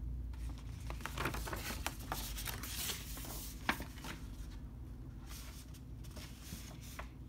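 Pages of a paper Blu-ray booklet being turned and rustled by hand, with scattered light clicks and one sharper tap about three and a half seconds in.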